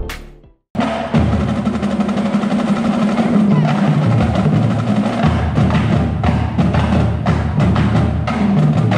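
A marching drumline playing: snare drums, multi-tom tenor drums and bass drums beating a fast, dense rhythm that comes in abruptly about a second in.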